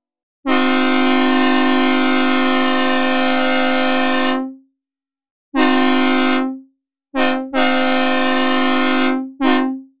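Synthesized recreation of a Nathan K3HL three-chime locomotive air horn, played dry without reverb. It sounds in five blasts: a long one of about four seconds, a shorter one, a quick toot, another long one and a short one, each cutting off cleanly.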